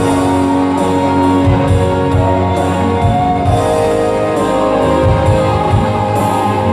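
Live band playing an instrumental passage with held notes over a steady drum beat.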